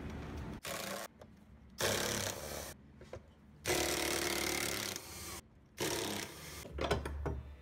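Cordless ratchet running in four short bursts, the third and longest with a steady whine, as it undoes the bolts of a driveshaft centre support bracket.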